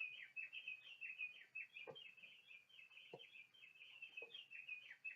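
Recorded house finch song playing from a singing bird clock: a faint, long, rapid warble of short high notes, with a few soft taps.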